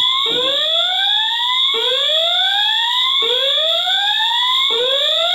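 Fire alarm voice-evacuation speakers sounding the whoop evacuation signal: a rising tone swept up and repeated about every one and a half seconds, four times, over a steady high-pitched tone.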